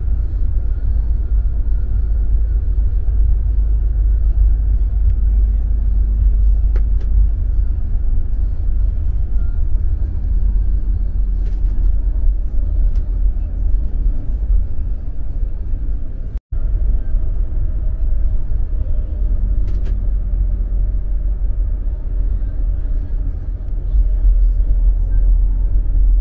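Steady low rumble of a full public bus, heard from inside the passenger cabin, with a split-second break about two-thirds of the way through.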